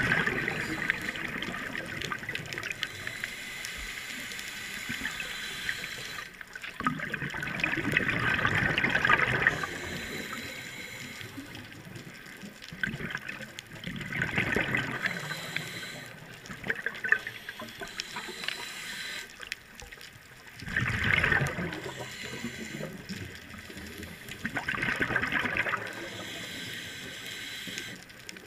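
Scuba diver's regulator underwater: exhaled bubbles rush out in swells of a second or two, about every five to seven seconds, with quieter stretches between breaths.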